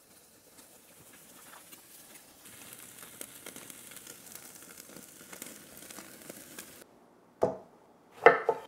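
Ribeye steak searing directly over a live charcoal fire, fat sizzling and crackling on the hot coals as flames flare up around it. The sizzle cuts off suddenly about seven seconds in, followed by two short, louder sounds near the end.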